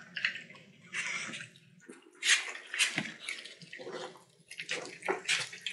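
A litter of 4-week-old collie puppies eating together from a shared pan: a quick, irregular run of wet smacking and slurping sounds with small clicks.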